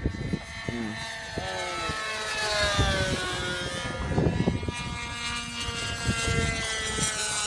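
Engines of radio-controlled model sport planes running at speed in flight, the pitch sliding down as a plane flies past in the middle.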